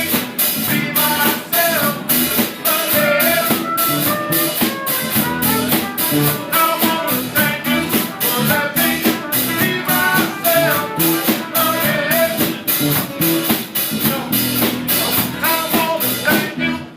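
Live band playing with a steady drum-kit beat, guitar and singing; the song stops abruptly at the very end.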